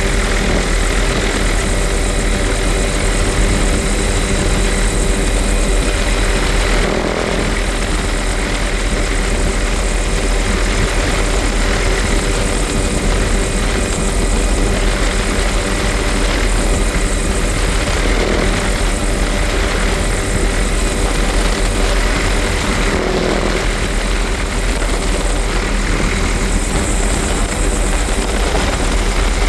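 Helicopter in flight with its doors off: steady, loud rotor and engine noise, mixed with wind rushing past the open cabin.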